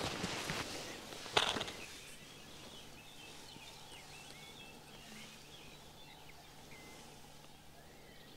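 Rustling and scuffing steps with a sharp click about a second and a half in, then quieter outdoor ambience: many short, high bird chirps over a faint steady low hum.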